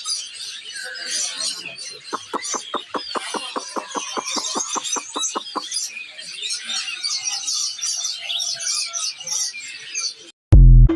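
Many caged songbirds chirping and singing at once. From about two seconds in, a run of evenly spaced pulsed calls, about six a second, lasts some three and a half seconds. A loud short low thump comes near the end.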